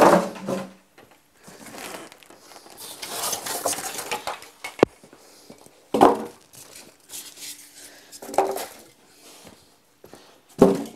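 Styrofoam packing and a cardboard box being handled: scraping and rustling as the foam is pulled out and moved, with sharp knocks at the start, about six seconds in, about eight seconds in and near the end.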